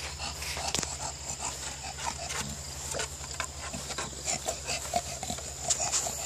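English bulldog panting in an irregular run of quick, noisy breaths.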